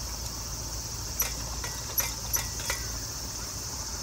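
Insects trilling steadily, with a run of five sharp metallic clicks from about a second in as a kerosene pressure lantern is worked by hand; the lantern will not light, and its tank is thought to be short of pressure.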